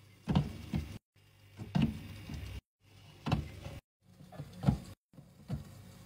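Plastic drink bottles being set down one by one in a mini fridge: a sharp knock each time a bottle lands, with handling rustle after it. This comes as short takes cut off abruptly about every second, some over a low hum.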